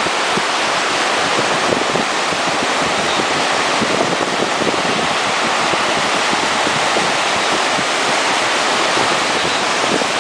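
Steady loud rushing of water and wind, with no clear engine note or pitch standing out.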